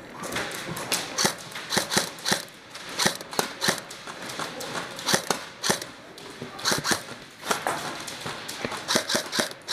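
Airsoft gunfire indoors: sharp snaps of shots and BBs striking plywood walls, coming irregularly a couple of times a second, some in quick pairs.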